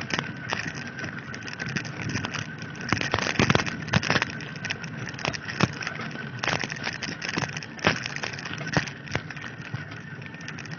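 Bicycle rolling over a rough dirt road: a steady crunch and rattle from the tyre and frame, with irregular knocks as it jolts over bumps.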